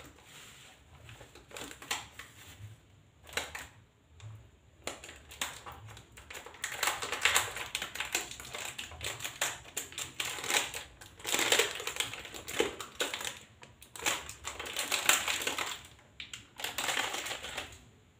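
Plastic bag and food wrapping rustling and crinkling in irregular bursts as a packed meal is unwrapped by hand. The rustling is sparse at first and becomes busy from about six seconds in.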